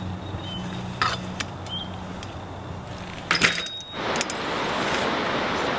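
Metallic clicks and clinks of a folding bicycle being handled, with its frame hinge clamp worked by hand. There are single clicks about a second in and a louder rattle of clinks about three and a half seconds in.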